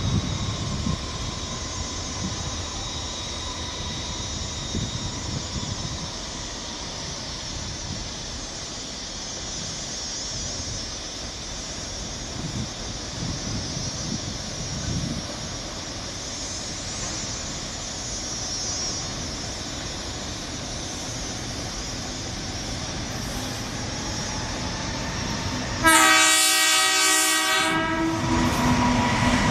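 A GE-built EL class diesel-electric locomotive approaches with a steady low engine rumble. About four seconds before the end it sounds a loud horn blast of about two seconds, then its engine and wheels grow louder as it draws near.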